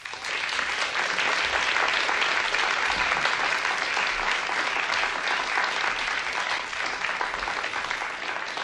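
Audience applauding, starting all at once as a song ends and thinning out gradually toward the end.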